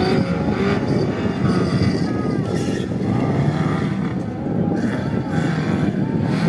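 Off-road buggy's engine running as the buggy drives across a dirt course, with a steady, wavering drone.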